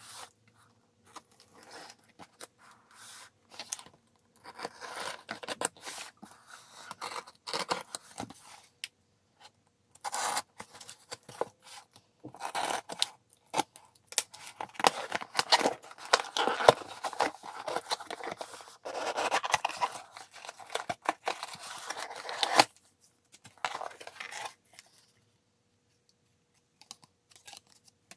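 Retractable utility knife slicing through packing tape and cardboard on a mailer box, with scratching, tearing and ripping in irregular spells, loudest in the middle, and a quiet stretch near the end.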